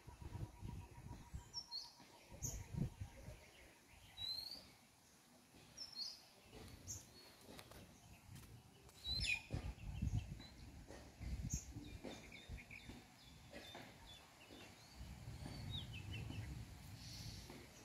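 Scattered short, high chirps of small birds, with intermittent low rumbling on the microphone underneath.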